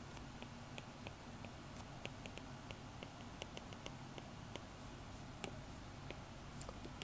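Stylus tip tapping on a tablet's glass screen during handwriting: a string of light, irregular clicks over a faint steady hum.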